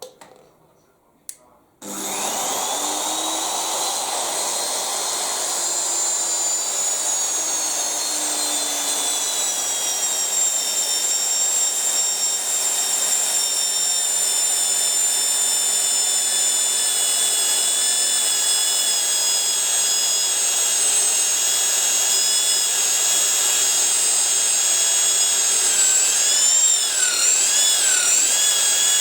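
A switch clicks, then the 1500 W motor of a Titan magnetic-base drill starts about two seconds in. It runs steadily with a high whine as a 10 mm bit drills through 1 cm steel bar. Near the end the pitch wavers up and down.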